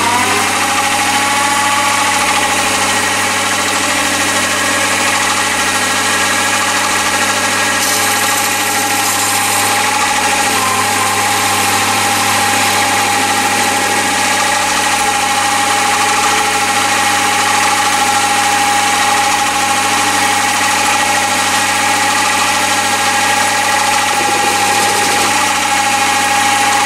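Chinese mini lathe running at about 750 rpm, a steady motor and gear whine with a low hum, while a carbide insert tool faces off the end of a mild steel bar.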